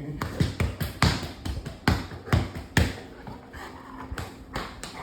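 An XL Bully puppy at play: a run of irregular sharp taps and thumps, with four loud knocks in the first three seconds.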